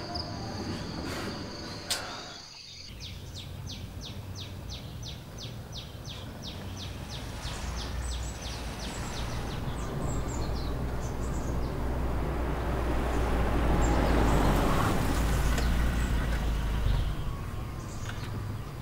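Outdoor ambience: a steady high insect trill stops about three seconds in. A fast, even chirping follows at about three or four a second, then a rumbling noise that swells for several seconds and fades near the end.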